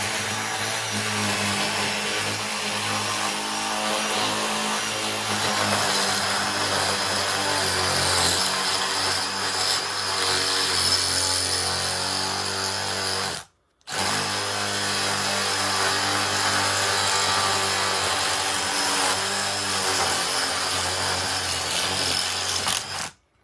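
Milwaukee M18 Fuel Gen 3 cordless impact driver hammering a Milwaukee concrete drill bit into a hard cement brick. It runs steadily, stops for a moment about halfway through, starts again and cuts off near the end.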